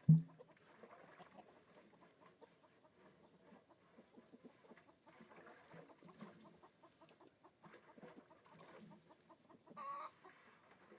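Chickens clucking softly on and off, with a short, louder low sound right at the start and a clearer call near the end.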